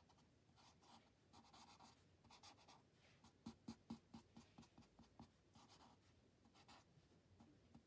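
Black felt-tip marker scratching faintly on paper in short strokes as a spiky outline is drawn, with a quick run of short strokes in the middle.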